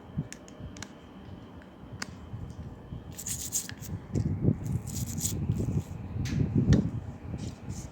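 Hands working a vacuum cleaner's stuck push-button power switch while cleaning it with a cleaning product: scattered clicks and rubbing, with two short hisses about three and five seconds in.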